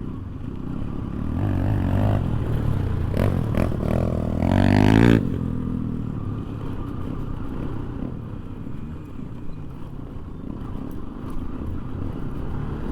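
Motorcycle engine revving up under acceleration, its pitch climbing for a few seconds until the throttle shuts off suddenly about five seconds in. It then runs on quieter at lower revs.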